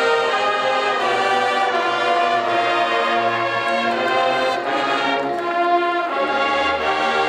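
Marching band brass and woodwinds playing a full, sustained ensemble passage with held chords. Low bass notes come in near the end.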